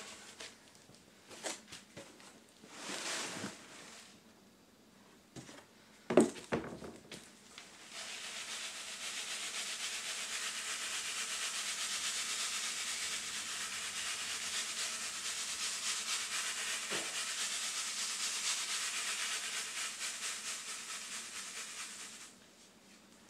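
Chopped charcoal rattling and sifting in a wooden-framed sieve shaken back and forth, the fines falling through: a steady rustling hiss for about fourteen seconds. Before it, a few knocks from the sieve being handled, the loudest about six seconds in.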